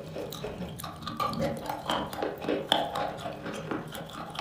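Close-up wet mouth sounds of someone eating wet chalk coated in cream: irregular lip smacks, sticky clicks and squelches of the soft paste.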